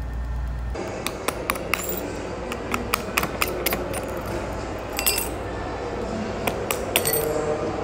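Metal tweezers scraping and prying loosened, cracked back glass off an iPhone 13 after laser separation: irregular sharp clicks and small glassy clinks, several a second. A low steady hum stops abruptly under a second in, where the scraping begins.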